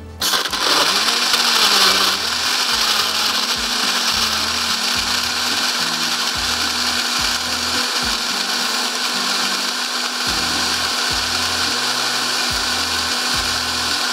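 Countertop blender running at full speed, blending a peach smoothie with ice, milk and yogurt in the jar. It starts abruptly, is loudest for the first two seconds, then runs steadily.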